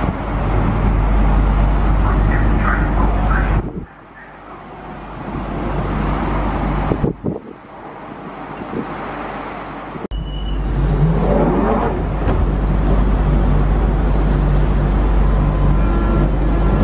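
London Underground 1992 Stock train standing at the platform with a steady low hum. After a cut about ten seconds in, a train pulls out, its traction motors giving a rising whine as it accelerates.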